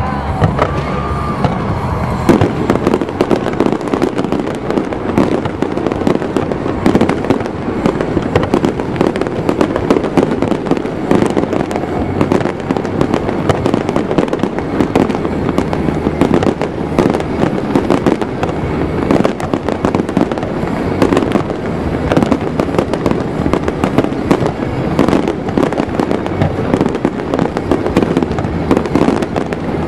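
Fireworks display going off in a dense, continuous barrage of bangs and crackling that thickens about two seconds in.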